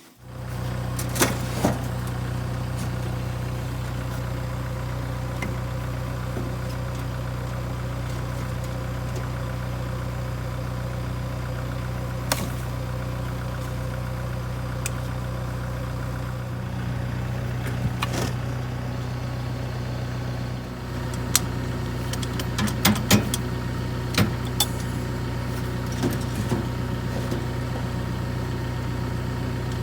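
Farm tractor engine running steadily at a constant speed, with scattered clicks and knocks, a cluster of them a little past the middle.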